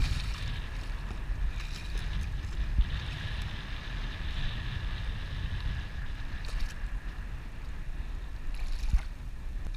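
Wind rumbling steadily on the microphone, with water splashing and sloshing as a small hooked striped bass thrashes at the surface and is drawn in on the fly line.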